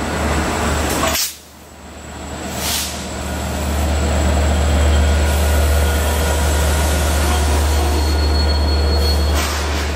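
Long Island Rail Road train hauled by DM30AC dual-mode diesel-electric locomotives, running loud at the station platform: a steady low drone with a noisy hiss over it, briefly cut off about a second in.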